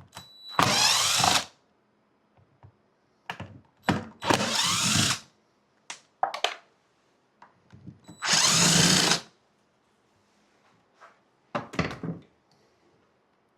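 Cordless drill-driver backing out the screws that hold a Sea-Doo's stock speaker, run in three bursts of about a second each, with shorter clicks and brief trigger pulls in between.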